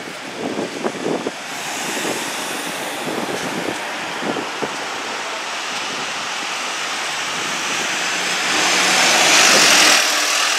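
Double-decker city bus running close by in street traffic, with a few short knocks early on. Its noise swells to a loud hiss near the end as it passes right beside, then drops away sharply.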